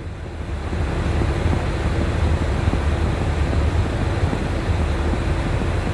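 An Airbus airliner's jet engines and rushing noise heard from inside the aircraft as it rolls along the runway. The deep, steady rumble swells during the first second, then holds.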